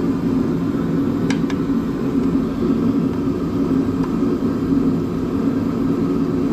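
Steady machine drone that holds one even pitch throughout, with two light clicks about a second and a half in.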